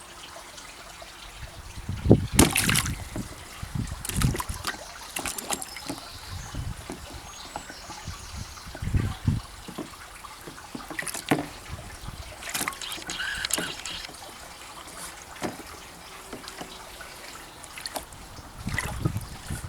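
Water splashing and trickling in irregular bursts, the loudest about two seconds in.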